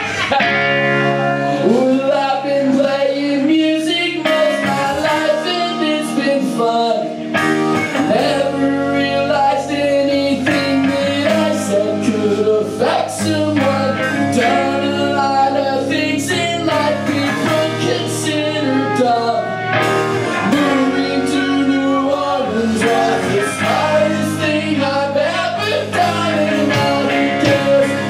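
Live ska band playing a song: electric guitar, bass guitar and drums with a horn section of trombones, saxophone and trumpet.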